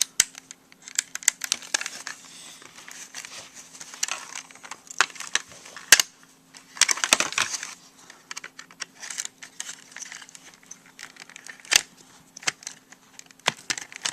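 Plastic parts of a Sharp clock radio being handled and worked apart with a screwdriver: irregular clicks, taps and short scrapes of plastic casing and parts, over a faint steady hum.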